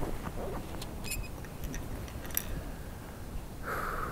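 A few faint, sharp clicks and ticks, then a steady hiss that starts near the end.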